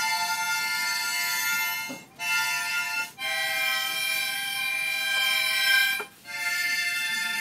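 Harmonica played by a young elephant holding it in its trunk: long held chords that break off briefly about two seconds in and again near six seconds, with the chord changing after the first break.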